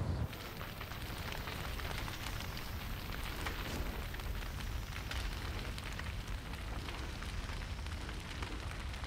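A large fire crackling: a steady hiss full of small pops and crackles over a low rumble.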